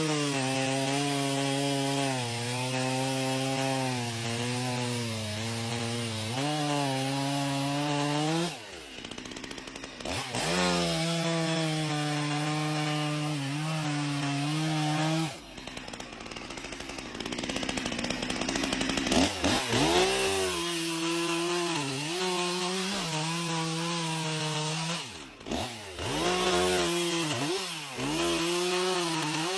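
Two-stroke chainsaw running at high revs while sawing wood, its pitch wavering under load. It drops back about three times, near 9, 16 and 25 seconds in, and revs up again each time.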